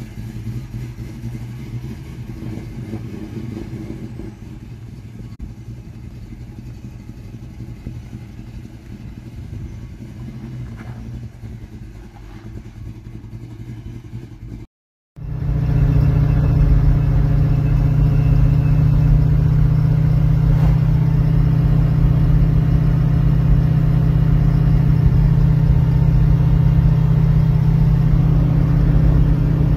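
The 1970 Mustang Grande's stroked small-block Ford V8 running as the car drives away down a driveway, slightly fainter as it goes. After a cut about halfway through, the same engine is heard from inside the cabin as a loud, steady drone at constant engine speed while the car cruises.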